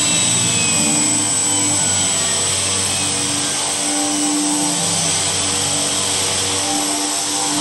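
Inline high shear mixer running steadily under its frequency inverter: an even machine noise with a thin, high whine held throughout.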